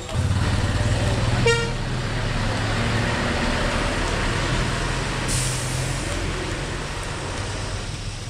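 Heavy road vehicle's engine running close by as a steady low rumble. There is a short horn toot about a second and a half in, and a brief high hiss about five seconds in.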